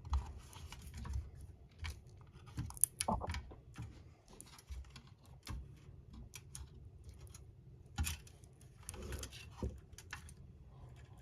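Scattered small clicks, taps and light rustles of plastic model-kit parts and clear sticker backing being handled on a work surface.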